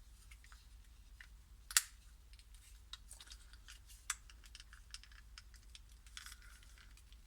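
Faint, irregular plastic clicks and snaps of a Transformers action figure's joints and panels being moved during transformation, with one louder snap a little under two seconds in.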